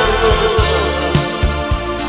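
Band music led by a Casio electronic keyboard playing a melody over a steady drum beat of about two beats a second.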